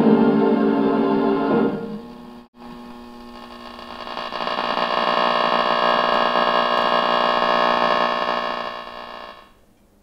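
Big band music playing through an Airline 62-306 Teledial tube radio's speaker. The tune breaks off about two seconds in, then a long held chord swells and fades away near the end.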